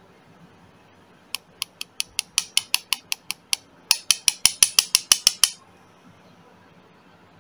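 Small steel hammer tapping a lead fishing sinker held in the fingers, beating the lead flat: a run of about a dozen light, ringing taps at roughly five a second, then after a short pause a louder, slightly quicker run of about ten more.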